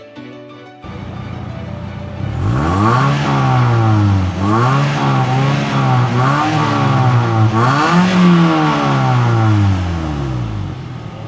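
Toyota Corolla GLi's engine revved several times over: the pitch climbs, drops back and climbs again, with the highest rev near the end before it falls away.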